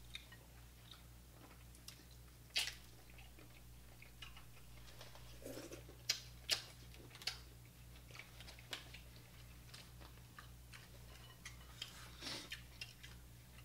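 Faint close-up eating sounds from a seafood boil: chewing, with scattered sharp crunches and clicks as crab shells are handled and cracked by hand. A low steady hum runs underneath.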